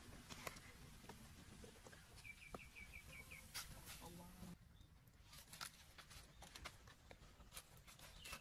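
Quiet outdoor background in which a bird gives a quick run of about seven short, high chirps a couple of seconds in, with scattered faint clicks.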